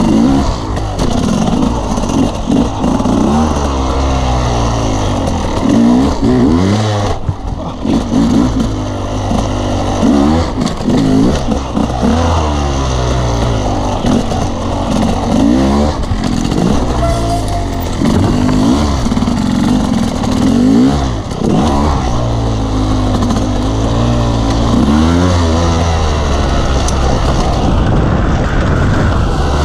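Off-road motorcycle engine ridden hard over a dirt course, revving up and easing off again and again every few seconds.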